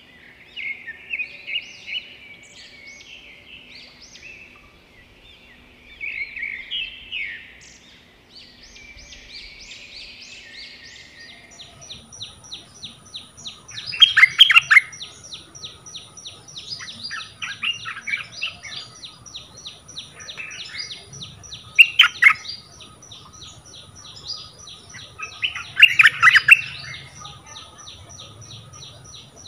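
Bulbul call bird singing: short chirpy phrases at first, then loud bubbling song bursts about every four seconds. Behind them, from about twelve seconds in, a steady high whine and a fast even ticking.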